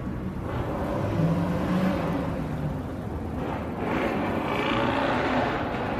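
Cars driving past on a city street: engine noise and tyre rumble, getting louder about four seconds in.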